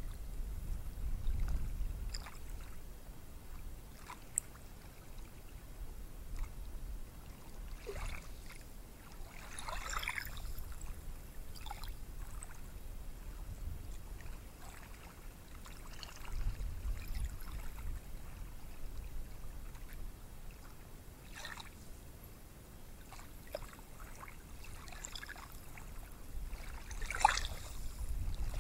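Gentle ocean surf on a beach: a low rumble that swells and fades, with a few short hissing washes of water.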